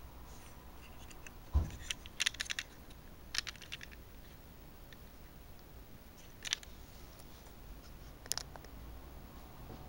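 Handling noise of a small die-cast model pickup turned over in the fingers: scattered light clicks and taps of fingertips and plastic, with a soft thump about one and a half seconds in.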